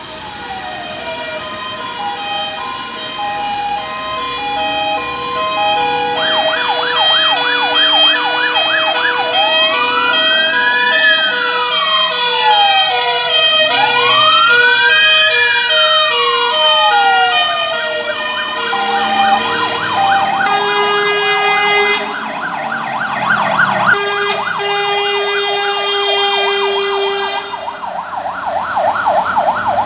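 Fire engine sirens from a Mercedes-Benz Atego and a MAN TGM tender on an emergency run, overlapping: a stepped hi-lo two-tone, then a fast yelp and slow rising-and-falling wails. In the last third, two long, loud air horn blasts sound over the sirens, and a fast yelp closes it out.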